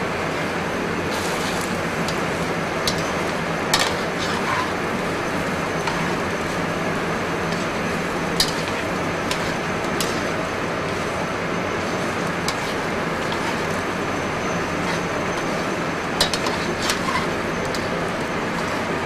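Steady hiss of a gas burner and a simmering pan of fettuccine in cream sauce, with scattered sharp clinks of metal tongs against the sauté pan as the pasta is stirred.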